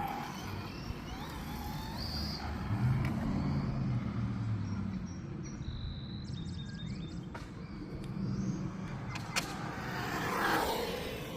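MJX 7303 radio-controlled rally car driving about, its small electric motor and tyres running over the ground, louder for a couple of seconds near the middle.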